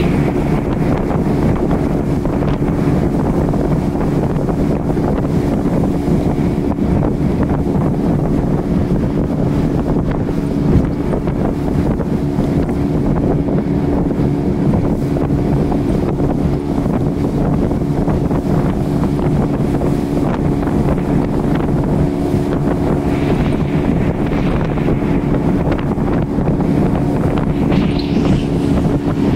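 Speedboat engine running steadily at cruising speed, a constant drone, with wind buffeting the microphone.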